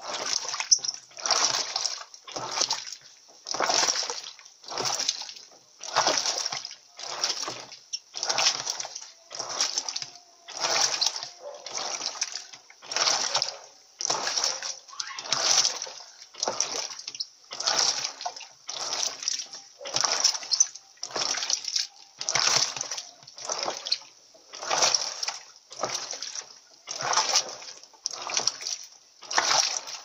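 Electrolux Silent Control 16 kg top-loading washing machine agitating a load of sneakers in soapy water. The agitator swings back and forth, giving a rhythmic slosh and splash about once a second.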